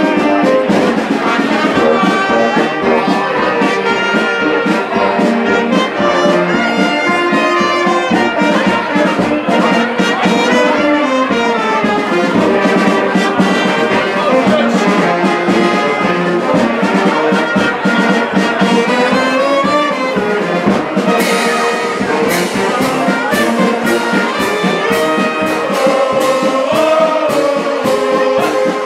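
Brass band music with a steady beat, dense with trumpets and trombones; the percussion gets brighter about two-thirds of the way through.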